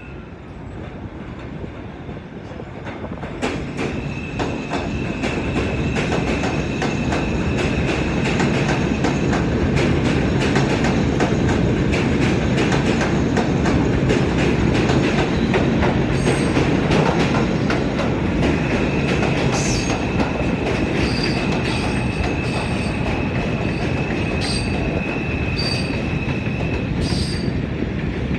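R142 subway train approaching and running through an elevated station without stopping. The rumble of the cars grows louder over the first few seconds, then holds steady, with rapid clicking of the wheels over the rail joints. A high, steady wheel squeal comes in twice, the second time near the end.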